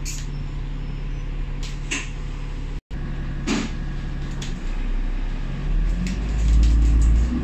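Diesel engine of a KMB Alexander Dennis Enviro500 MMC double-decker bus heard from the lower deck, idling with a steady hum and a few interior rattles. About four and a half seconds in it revs up with a rising tone and grows louder as the bus pulls away.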